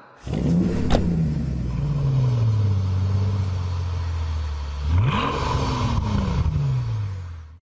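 Vehicle engine running while the vehicle is under way. Its note sinks slowly as it slows or coasts, rises sharply about five seconds in, then sinks again, and the sound cuts off suddenly near the end.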